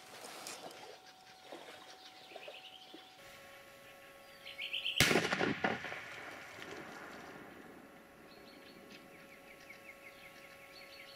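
A single shotgun shot about five seconds in, fired at a drake that has landed beyond the decoy ducks. Short quick runs of bird calls come just before the shot and again near the end.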